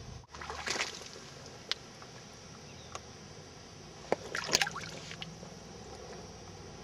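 Water sloshing and splashing, with a short splash about a second in and a longer, louder one about four to five seconds in, and a few sharp clicks between them.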